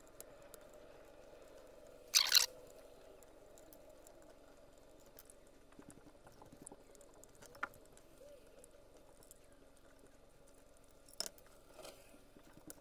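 Allen key turning out screws from a lathe's sheet-metal chip deflector and steel frame: small metal clicks and handling noise, with one brief louder clatter about two seconds in, over a faint steady hum.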